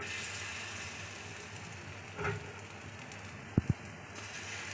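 Chickpea-flour batter sizzling in hot oil as it is ladled onto the pan and spread. Two short, low thumps come close together a little after three and a half seconds in.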